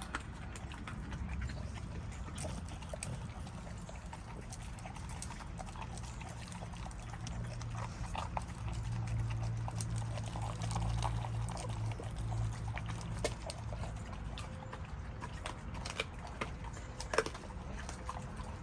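American Bully dogs eating raw meat: wet chewing and smacking with scattered sharp clicks, over a steady low hum.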